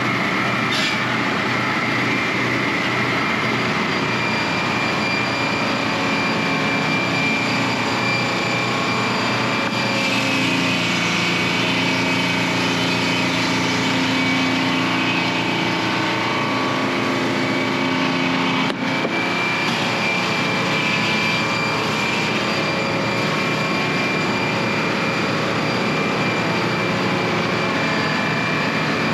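An engine running steadily, its note shifting slightly about ten seconds in and again a little before twenty seconds.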